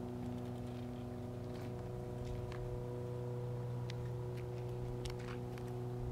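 Steady low machine hum made of several constant tones, with a few faint short ticks over it.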